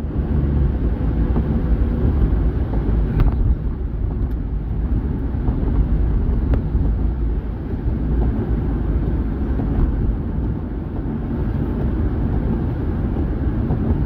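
Steady low rumble of tyres and engine heard from inside a car driving on a wet, slushy highway, with a few faint clicks spaced a few seconds apart.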